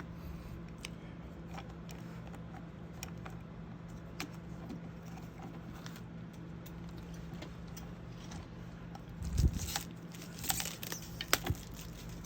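Small metallic clicks and rattles from an Allen wrench and mirror hardware being handled, with a heavier knock about nine seconds in and a run of clicks just after. A steady low hum runs underneath.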